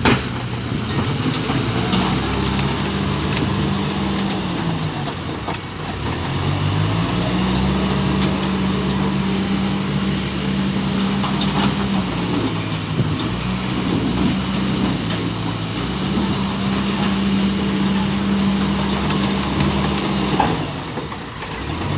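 Bobcat B900 backhoe loader's diesel engine running, dropping and rising in speed several times as the machine works under load, with a few knocks.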